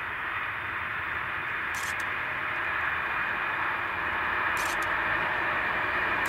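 Inside a moving Trenitalia sleeping car: the train's steady rushing hiss, slowly growing a little louder, with short double clicks about every three seconds.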